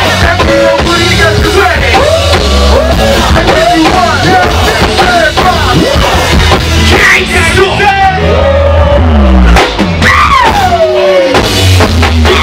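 Go-go band playing live through a club PA, loud with a heavy, steady bass line, and a vocalist yelling and singing over it. Near the end one voice slides down in a long falling shout.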